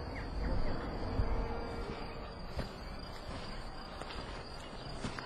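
Outdoor ambience of crickets chirping steadily in the open, with a low rumble in the first second or so.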